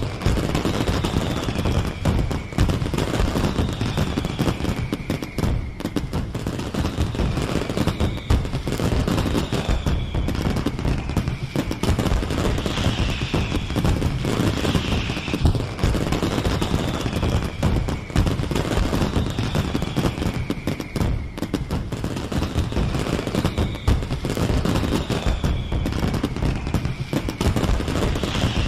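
A fireworks display: dense, continuous crackling and banging, like rapid gunfire, with falling whistles every second or two.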